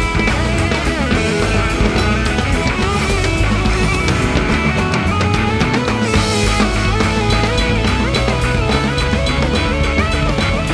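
Rock music with distorted electric guitar and a full drum kit.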